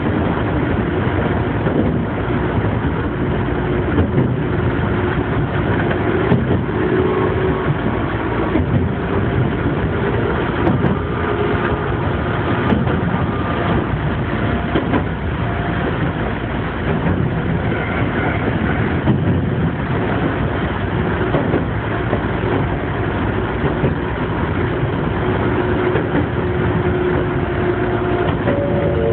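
Gakunan Railway electric train running along the line, heard from inside the front cab: a steady rumble of wheels on rail with a faint whine that comes and goes.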